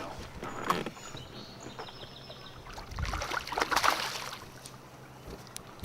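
Water sounds around an aluminium fishing boat over a steady low hum, with a louder burst of splashing about three seconds in.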